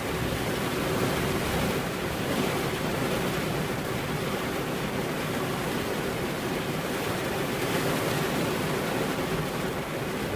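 Steady rain, an even hiss that holds at one level.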